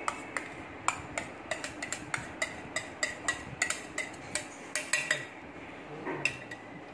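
Metal spoon tapping and scraping against a small stainless-steel bowl and steel pot as garlic paste is knocked out: quick light clinks with a ringing note, about three or four a second, dying away about five seconds in.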